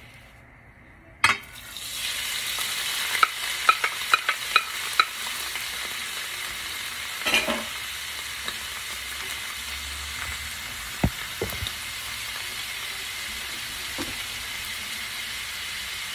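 Pre-cooked shrimp going into a pan of hot canola oil: a knock about a second in, then steady sizzling, with a run of light clicks a few seconds in and a couple of knocks later.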